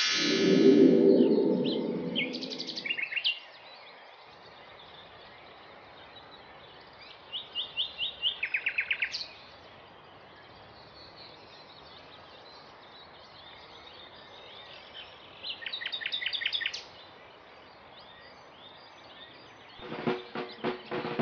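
Outdoor ambience with a songbird singing short trilled phrases three times, each a quick run of repeated notes. It opens with a loud pitched sound effect lasting about three seconds, and a drum roll starts near the end.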